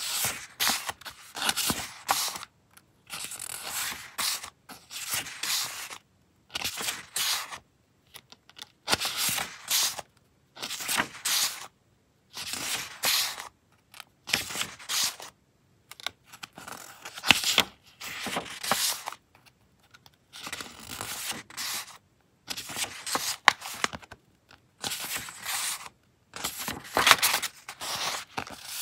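Sheets of printed paper and postcard stock being picked up, shuffled and leafed through one by one: crisp rustles and slides every second or two, with short silent gaps and a few sharper snaps of paper.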